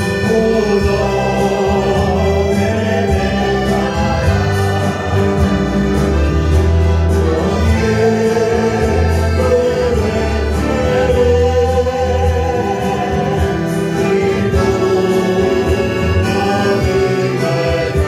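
Church worship band and choir performing a song live: voices singing together over acoustic guitars, saxophone and accordion, with held low bass notes underneath.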